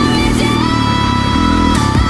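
Background electronic music with sustained synth tones and a steady beat.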